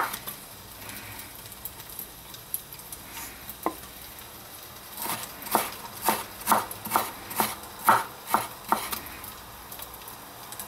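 Chinese cleaver chopping garlic on a wooden cutting board. It is quiet at first with only a faint knock or two, then comes a run of about ten sharp knocks, two or three a second, which tails off near the end.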